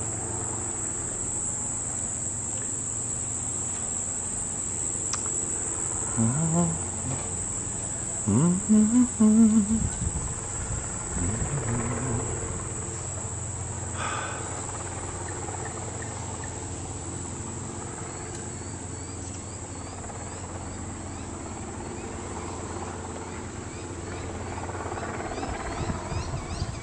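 A steady, high-pitched drone of insects runs over a low, steady hum. A few short louder sounds with bending pitch come around six to twelve seconds in.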